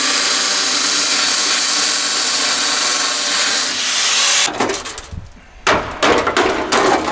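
A power tool cutting into the stuck exhaust muffler, running steadily for nearly four seconds and then stopping. Several knocks and scraping sounds of metal follow.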